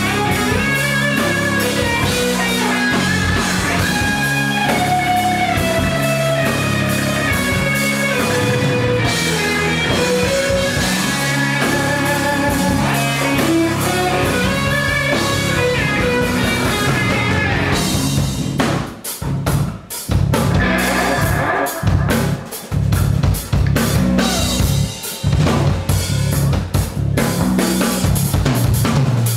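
Backing rock music: a melodic lead over bass and drums, turning about eighteen seconds in to a choppy drum-led passage with brief sudden stops.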